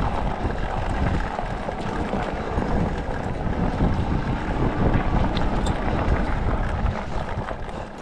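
Wind buffeting the microphone while riding an electric bike: a loud, uneven low rumble with no clear tone, which covers the bike's own sound.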